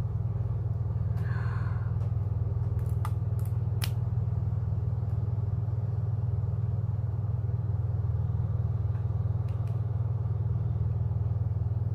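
Steady low hum that holds at one even level throughout, with a few light clicks of a lipstick case being handled three to four seconds in.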